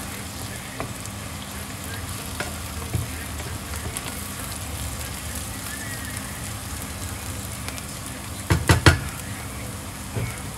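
Food sizzling steadily in a frying pan while being stirred, with a quick run of louder knocks against the pan near the end.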